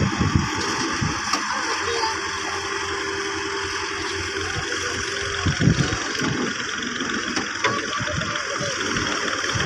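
Heavy machinery engine running steadily. A steady whine sounds over it from about two seconds in and stops about three and a half seconds later.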